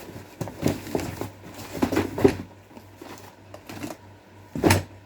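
Parts and packaging being handled on a workbench: irregular knocks, clatter and rustling, with one sharper knock about four and a half seconds in.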